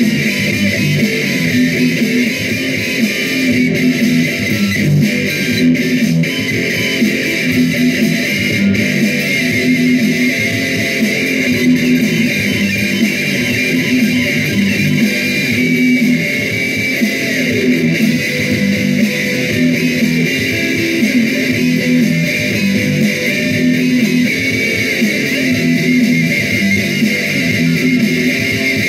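Solid-body electric guitar played without a break, metal-style riffing.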